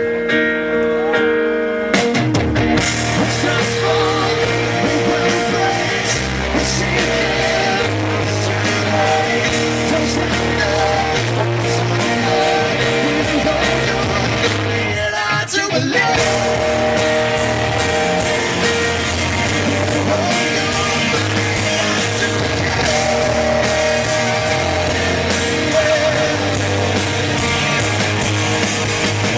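Live rock band music: electric guitars and band playing loudly, with singing. The sound thins out briefly about halfway through.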